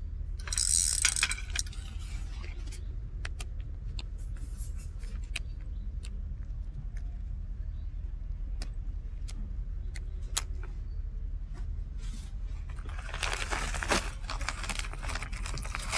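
Clicks and jangling rattles of fishing tackle being handled, in two bursts about a second in and again near the end, over a steady low rumble.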